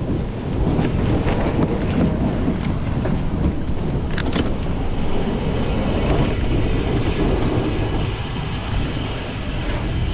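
Wind buffeting the microphone over the low rumble of a cyclocross bike racing over rough ground, with a few sharp knocks about four seconds in and a brighter hiss from about halfway.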